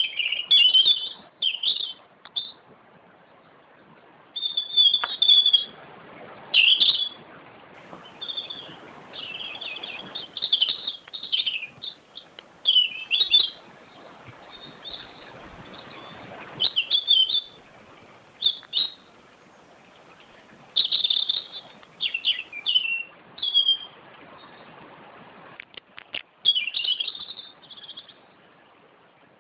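A small bird singing: short, high chirping phrases repeated every second or two, over a faint background hiss.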